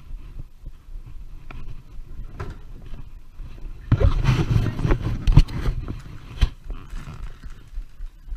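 Handling noise from a moving action camera: rubbing and a low rumble, loudest for about a second and a half midway, with scattered light clicks and knocks.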